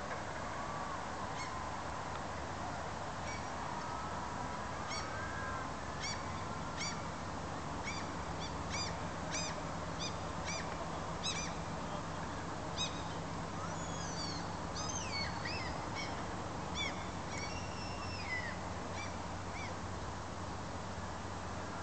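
Gulls calling: a run of short, sharp single cries in the first half, then a bout of wavering, bending calls, over a steady low hum and hiss.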